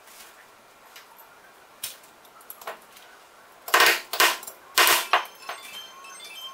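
Small hammer tapping a fitting into a metal airgun body: four sharp metallic strikes in two quick pairs about four seconds in, after light clinks of small parts.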